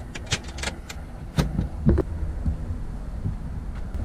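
A few sharp clicks and knocks, the loudest two about a second and a half and two seconds in, over a steady low rumble.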